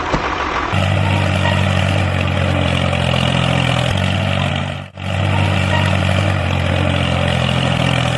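Truck engine idling steadily, the engine sound of a miniature construction truck. It cuts out for an instant about five seconds in, then carries on.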